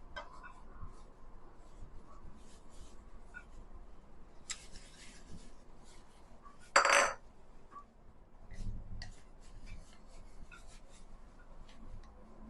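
A utensil tapping and scraping against a pot as steamed glutinous rice is mixed with a sauce, with scattered light clicks, a short scrape about four and a half seconds in and a louder clatter about seven seconds in.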